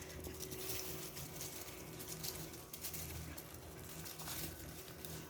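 Faint patter and rustling of Pomeranian puppies scampering about, a scatter of small irregular ticks and scuffs.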